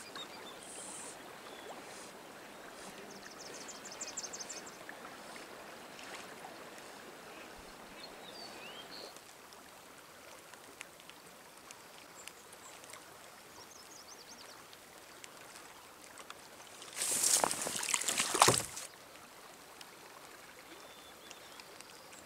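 Steady rush of flowing current where a lake drains out, with a few faint high chirps in the first half. About seventeen seconds in comes a loud rustling burst lasting under two seconds.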